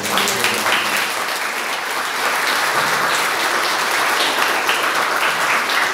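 Steady applause from the congregation, many hands clapping at once.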